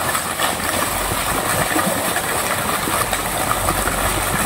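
Fountain jet splashing steadily into a pond, with a low steady hum underneath from about a second in.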